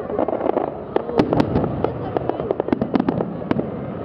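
Fireworks display: an irregular, rapid run of bangs and cracks from bursting shells, several a second, over a continuous rumble.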